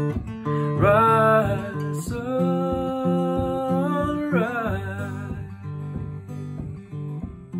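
Acoustic guitar played in a steady picked pattern, with a man singing long held notes from about a second in until nearly five seconds, then the guitar alone.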